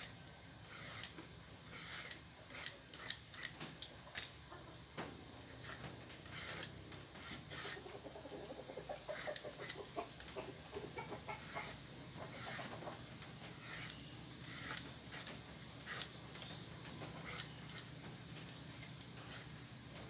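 Y-peeler shaving strips of skin off a firm papaya: a run of short rasping strokes, irregular, one or two a second.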